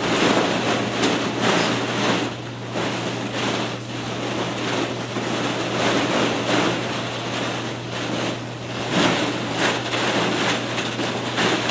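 Hollow plastic ball-pit balls clattering and rustling as a toddler wades and crawls through them: a dense, continuous patter with many sharp little clicks. A steady low hum runs underneath.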